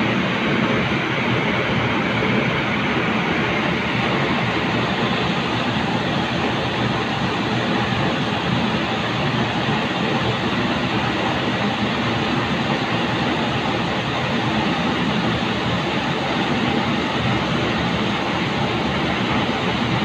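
Steady factory-floor machinery noise, an even rushing hum that holds at one level with no distinct clicks or strokes.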